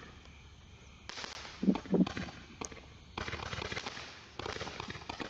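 Roman candle firing: crackling and hissing begin about a second in, with two short low pops near two seconds, and more crackling bursts follow.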